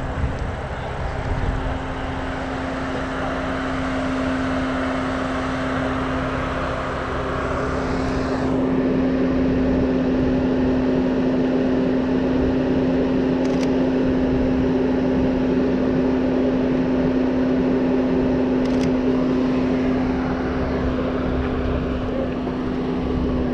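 A steady engine hum, one unchanging tone throughout, over outdoor background noise whose hiss lessens about eight seconds in.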